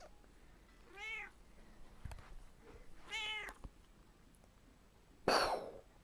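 A black cat meowing twice, a short call about a second in and a longer one about three seconds in, each rising and falling in pitch. About five seconds in comes a short, louder burst of hissy noise.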